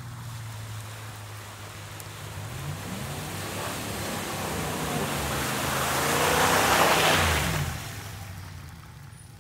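Ram 1500 Rebel pickup with its 5.7 HEMI V8 driving past through a wet, muddy trail: the engine rises in pitch as it accelerates, and the tyres' rush through water and mud grows louder. It peaks as the truck passes about seven seconds in, then the engine pitch drops and the sound fades.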